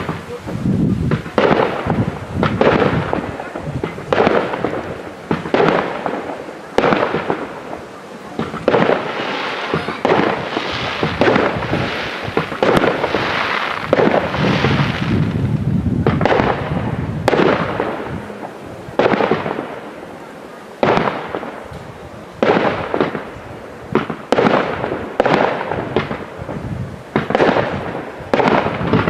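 Professional aerial fireworks display: shell bursts and launches going off one after another, every second or two, each bang trailing off in a long echo.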